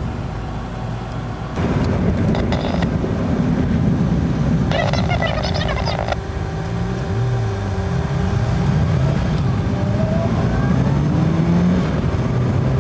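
Car engine and road noise heard from inside the cabin, the engine note rising several times as the car accelerates. A brief higher, wavering sound lasts just over a second about five seconds in.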